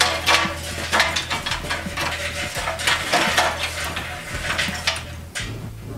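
Mesquite lump charcoal dropped by hand into a stainless steel Slow 'n Sear basket in a Weber kettle grill, the pieces clattering and clinking against each other and the metal. It is a rapid run of clicks that thins out after about three and a half seconds.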